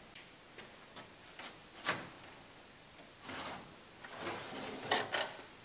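Metal clicks and knocks from a blade module in an SGI Altix 4700 chassis, the loudest about two seconds in, then scraping and sliding in the second half as the I/O board is pulled out along its housing, with another click near the end.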